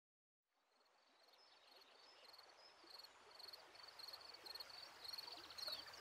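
Faint outdoor nature ambience fading in from silence: repeated short high chirps in quick regular runs over a soft steady hiss, with a few quick falling calls near the end.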